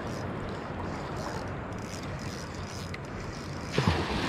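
Steady rush of wind and sea, with a sudden louder gust buffeting the microphone near the end.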